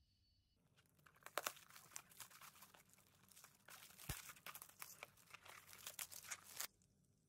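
Clear plastic shrink-wrap being torn and peeled off a cardboard tea box, crinkling and crackling in quick irregular strokes; it starts about half a second in and stops suddenly near the end.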